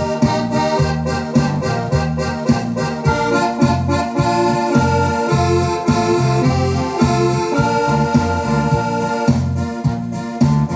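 Electronic keyboard played through an external loudspeaker box: sustained organ-like chords over a pulsing bass line and a steady beat.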